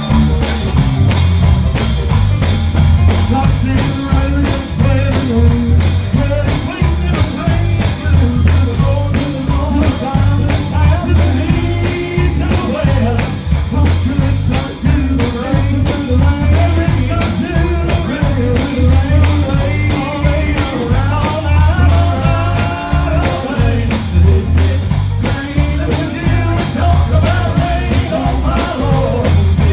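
Live gospel music: a voice singing over a band with a heavy bass line, guitar, and drums keeping a steady beat of about two strikes a second.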